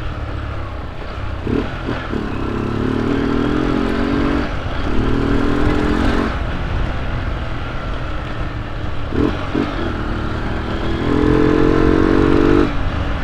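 Honda CG 125 Cargo's single-cylinder four-stroke engine running under way, with a growl from the intake because the air-filter cover and intake hose are removed. It swells in several stretches as the throttle is opened and settles between them.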